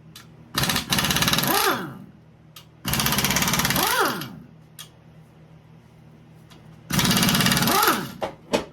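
Air impact wrench hammering in three bursts of about a second each, its motor pitch rising and falling with each pull of the trigger, as it loosens the main bearing cap bolts of a Chevy 350 small-block. A few sharp metal clicks come near the end.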